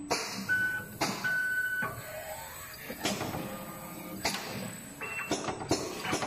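Automatic Litz wire winding and sleeving machine at work: a series of sharp mechanical clacks from its pneumatic slides and grippers, about six, spaced roughly a second apart, with brief high whines from its servo motors early on and a steady hiss underneath.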